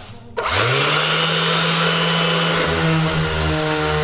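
Makita cordless random orbital sander switched on about half a second in, its motor spinning up with a short rising whine and then running steadily with a hum and high whine as its pad works over a plywood board.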